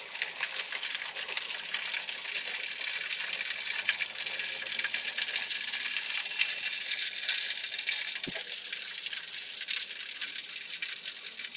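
Catfish and tempeh deep-frying in hot oil in a wok: a steady, dense crackling sizzle.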